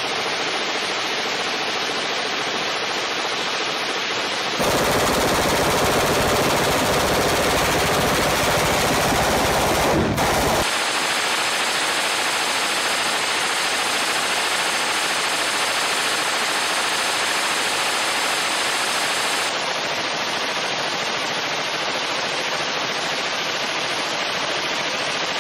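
Suppressed belt-fed light machine gun firing long strings of fully automatic fire. The shots run together into one steady, dense noise, louder and deeper from about 5 to 11 seconds in. The sustained fire is heating the suppressor until it glows red-hot.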